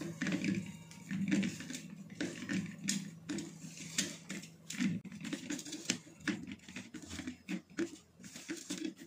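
Hands squeezing and mixing wet whole-wheat flour into poori dough in a steel bowl: irregular soft squelches and sticky crackles, several a second.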